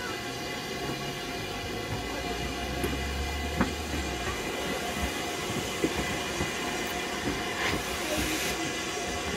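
Steam locomotive standing by or easing along a station platform: a steady hiss of steam with a few sharp metallic clanks. A louder rush of steam comes about eight seconds in.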